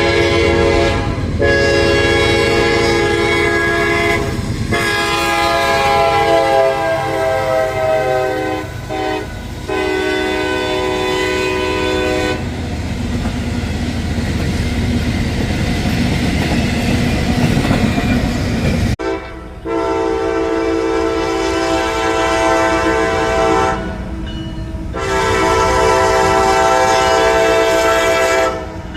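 Railroad locomotive air horns sounding a chord of several tones in long and short blasts. Between blasts the rumble and clatter of the passing train fill in. About two-thirds of the way through there is an abrupt cut, and horn blasts start again, ending a little before the end.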